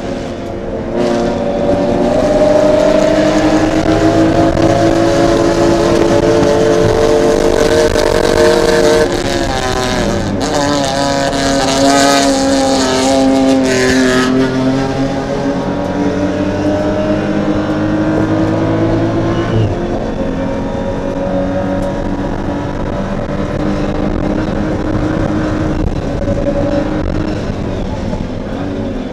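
BMW M235iR race car's turbocharged straight-six heard from inside the cockpit under hard acceleration. The engine note climbs steadily for several seconds, drops about nine seconds in, then climbs slowly again, with a rush of hiss over it for a few seconds in the middle.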